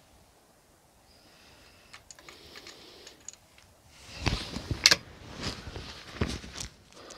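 Ruger No. 1 single-shot falling-block rifle's action being worked by hand to reload between shots. Faint metallic scraping gives way to a run of sharp metal clicks and clacks, the loudest about five seconds in.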